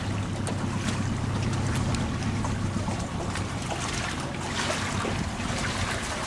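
Small boat's outboard motor running slowly with a steady hum, with wind noise on the microphone.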